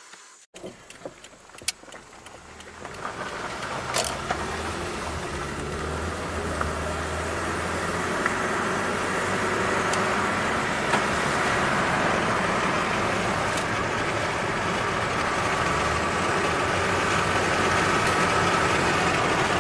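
2011 Toyota Camry heard from inside the cabin while being driven: engine and road noise build from about three seconds in as it picks up speed, then hold steady at cruise. It runs without the metallic rattle, its exhaust VVT phaser freshly replaced. A few light clicks come in the first seconds.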